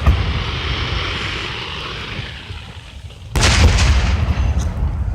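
Aerial fireworks shells bursting: a loud boom right at the start and a second about three and a half seconds later, each trailing off in a long fading rumble.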